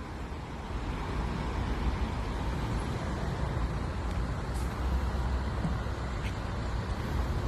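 Street traffic noise: cars passing on a multi-lane road, a steady low rumble of tyres and engines.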